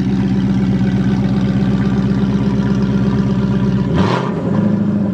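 Ford 5.0 Coyote V8 running with its exhaust removed behind the catalytic converters, idling with an even pulsing beat, then a quick throttle blip about four seconds in.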